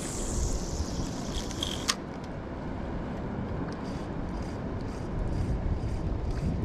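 Wind and water noise around a boat, with a fishing line hissing off a spinning reel during a cast, falling in pitch, then a sharp click about two seconds in. Faint, evenly spaced ticking of the reel being wound in follows.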